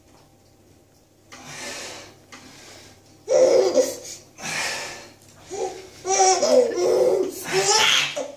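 Baby laughing in repeated bouts: a short giggle near the start, then louder belly laughs from about three seconds in.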